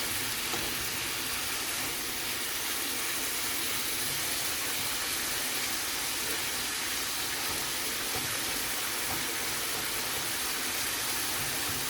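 Chicken frying in an uncovered pot, a steady sizzle.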